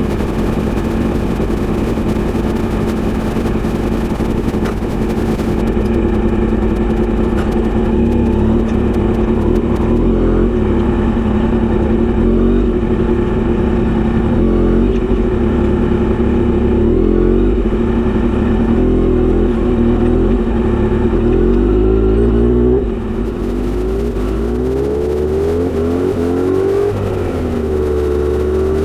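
Kawasaki Z900RS inline-four running loud through a short straight-pipe exhaust with a 70 mm silencer. It holds a steady note for most of the time, then the pitch rises and falls with the throttle over the last several seconds.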